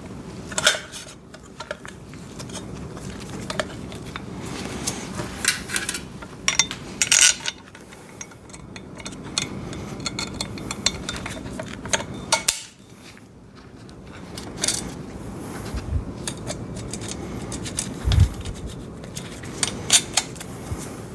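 Bolts, washers and nuts clinking and rattling against the steel frame pieces of a welding table as they are fitted and threaded together by hand. Scattered sharp metallic clicks, with a couple of low knocks about two-thirds of the way through.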